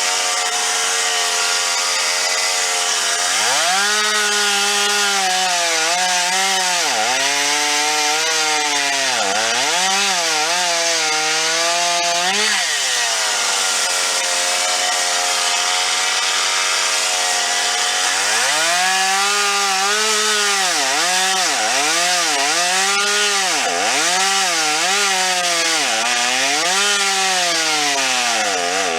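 Stihl chainsaw cutting wood at full throttle: the engine pitch repeatedly dips and recovers as the chain loads up in the cut. There are two stretches of cutting, separated by a few seconds of steady high revving.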